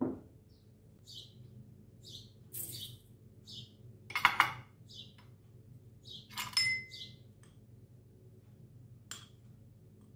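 Metal kitchenware clinking twice, about four and six and a half seconds in, the second with a short metallic ring, against a soft bump at the start; a small bird chirps faintly every second or so throughout.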